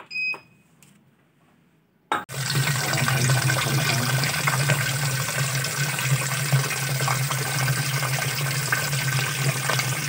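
A short control-panel beep, then about two seconds in the Polytron washing machine's water inlet valve opens and water rushes steadily into the tub with a low hum. This is the machine filling again after its clogged inlet valve, the cause of the slow-filling and humming fault, was cleaned.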